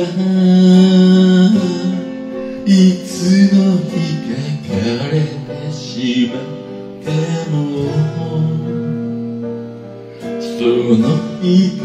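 A man singing a song over acoustic guitar accompaniment.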